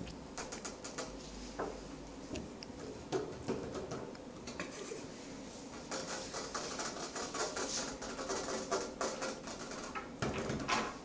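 Hands rubbing and scratching a tabby cat's fur with long fingernails: an irregular run of rustling and small scratching clicks, with a louder scrape near the end.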